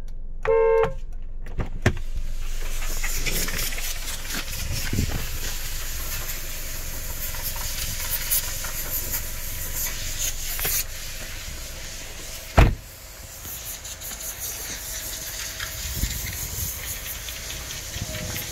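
A 2015 Hyundai Avante's horn gives one short toot right at the start. Then comes a steady hiss of outdoor noise and handling, with one loud thump about twelve seconds in.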